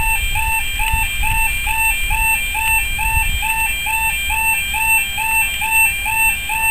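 A steady, repeating electronic warbling tone, about three cycles a second, over a low rumble.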